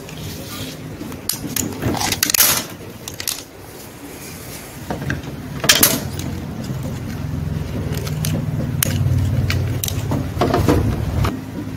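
Scattered clicks and knocks of a car side mirror's plastic housing, motor unit and wiring being handled and pulled apart, the sharpest about six seconds in. A low steady hum runs under it from about five seconds on.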